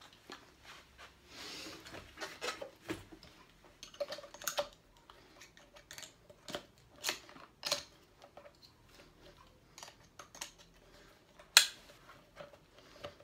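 Handling noise from a black open-heel diving fin being picked up and turned over: scattered clicks, taps and rubbing of rubber and plastic, with one sharp knock near the end.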